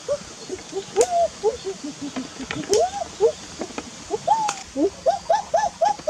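Domestic hen cackling: a quick run of short clucks with some longer rising-and-falling notes, the cackle a hen gives around laying an egg. A few sharp clicks cut through it.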